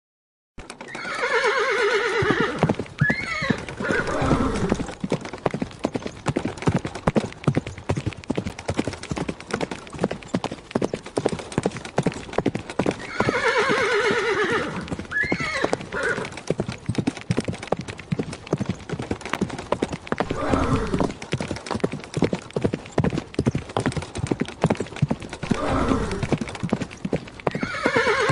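Horse hooves clip-clopping steadily as a horse pulls a cart, the clops and rattle running on without a break. The horse whinnies several times, loudest about a second in, around the middle and near the end.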